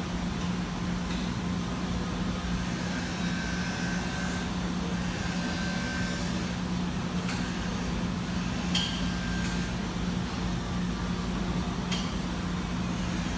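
Steady machine hum with a low drone, broken by a few sharp clicks.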